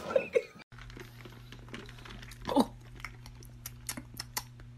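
Steady low hum with scattered faint clicks, and one brief voice-like sound about two and a half seconds in.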